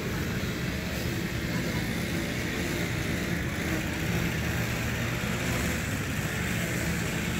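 A small engine of landscaping equipment running steadily in a low, even drone.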